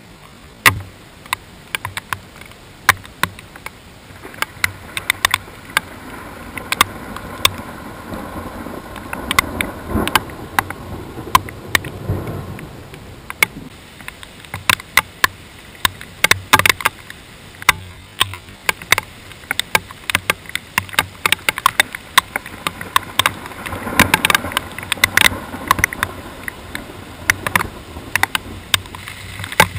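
Raindrops striking the GoPro's waterproof housing as many sharp, irregular ticks over a steady hiss of rain and wind. Low rumbles swell around ten seconds in and again near 24 seconds.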